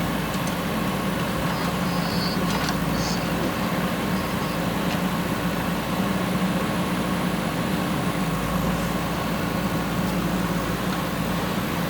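JCB 3DX backhoe loader's diesel engine running steadily at constant revs.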